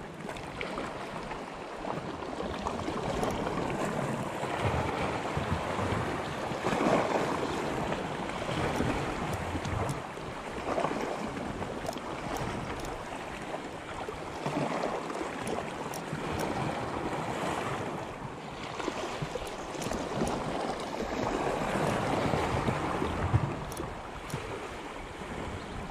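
Small sea waves washing and splashing at the water's edge, surging louder every few seconds, with wind on the microphone.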